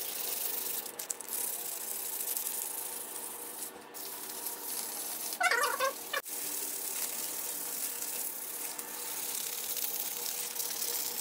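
Sandpaper rubbed by hand over a cured epoxy and carbon-fibre repair wrap on a bike frame tube: a steady scratchy hiss. A short chirping squeak breaks in about five and a half seconds in.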